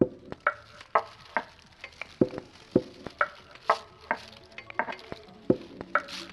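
Intro sound effect: a run of sharp clicks and knocks at an uneven pace, several a second, some with a short pitched ring.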